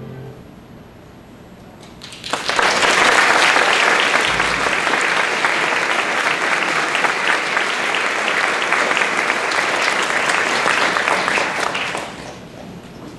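An audience applauding. The clapping starts suddenly about two seconds in, after the last notes of a piece of music fade, holds steady for about ten seconds, then dies away near the end.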